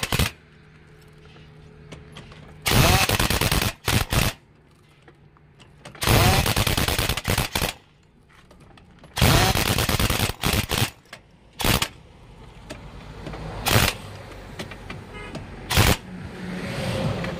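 Pneumatic impact wrench hammering on the wheel nuts of a heavy truck wheel, in three bursts of a second or more and several short blips. Each burst rises in pitch as the wrench spins up.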